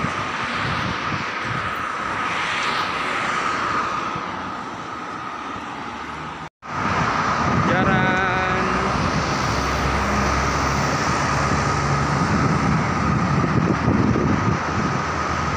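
City street traffic noise: a continuous rush of passing vehicles with a steady high hum underneath, one vehicle swelling and fading past about two to three seconds in. The sound cuts out completely for a moment about six and a half seconds in, then the traffic noise resumes.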